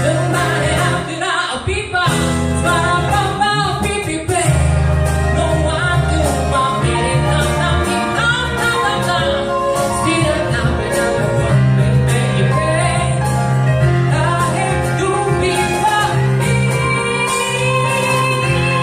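Band music in a jazz-tinged pop style: a long passage without lyrics, with a melodic line over sustained bass notes that thins briefly about a second in, then fills out again.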